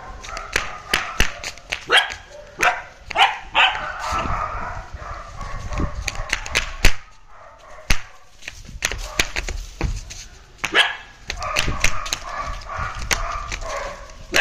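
Belgian Malinois puppies barking and yipping in quick runs of short, sharp calls, with a quieter lull in the middle.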